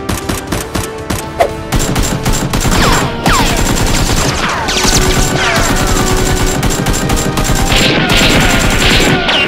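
Rapid automatic gunfire sound effects, dubbed over toy blasters, firing in long bursts with a few falling whines through them. Background music plays underneath.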